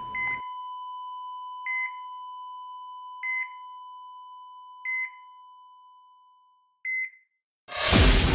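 Electronic monitor beeps, five short identical high beeps about every one and a half to two seconds over a faint steady tone that fades away. Near the end comes a loud, sudden burst of noise.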